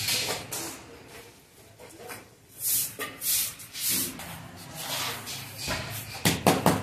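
Handling noises: a few brief shuffling swishes, then a quick run of sharp knocks and clicks near the end as a loose wooden window frame is handled.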